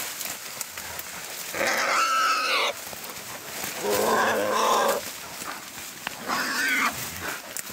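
Wild hog, caught and held by hunting dogs, squealing: three drawn-out squeals of about a second each.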